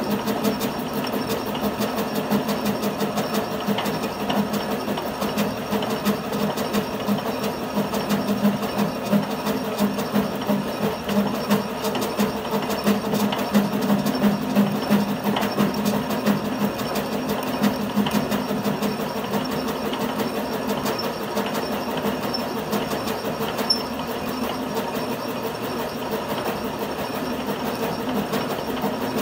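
Metal lathe running with a thread tap spinning in its chuck, driving and cutting the teeth of a free-turning gear blank to form a worm wheel: a steady mechanical hum with fast, even ticking.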